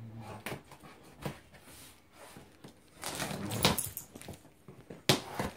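Cardboard shipping box being opened by hand: packing tape ripped off with a long tearing crackle about three seconds in, then a sharp snap as the cardboard flaps are pulled apart.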